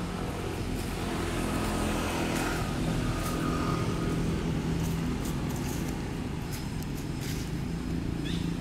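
Motor vehicle engine running steadily, a low hum with a few faint clicks over it and a short high squeak that falls in pitch near the end.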